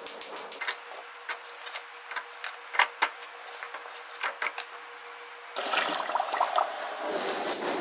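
Gas stove burner igniter clicking rapidly as the knob is turned, then scattered clicks and taps from the saucepan. About five and a half seconds in, hot water is poured from the pan through a colander into a steel sink, splashing.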